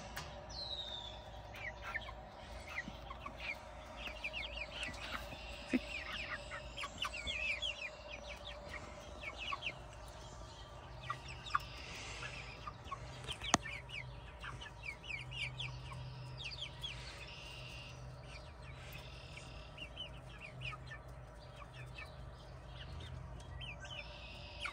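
Chickens softly clucking and chirping as they peck at and squabble over cranberries, with many short calls scattered throughout over a faint steady hum. A single sharp click stands out about halfway through.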